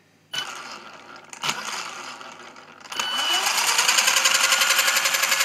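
Brushless electric motor of a large-scale RC truck spinning the gear train and wheels on the bench at light throttle: a rough whirr at first, then about three seconds in a rising whine that settles into a steady, loud whirring with a fast even pulse.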